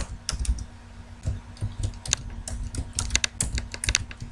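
Typing on a computer keyboard: quick, irregular keystrokes.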